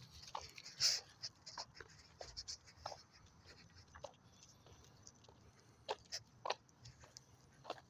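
A dog moving about close by, making a series of irregular short clicks and scuffs, the loudest about a second in and a few more near the end.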